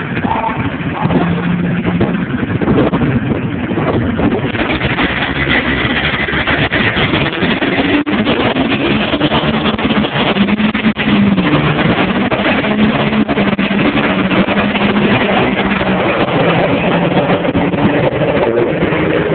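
Diesel pickup trucks drag racing: engines running at the line, then launching and accelerating hard down the strip. The sound gets much louder about four seconds in, and the engine pitch rises and falls as the trucks pull away.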